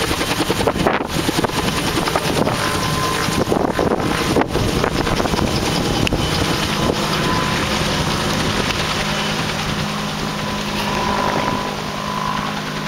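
Helicopter running close by, its rotor chop mixed with wind buffeting the microphone; about halfway through a steady engine hum comes through more plainly.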